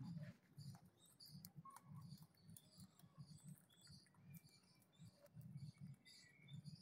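Faint nibbling and leaf rustling of rabbits chewing fresh leafy branches, with soft irregular crunches and ticks.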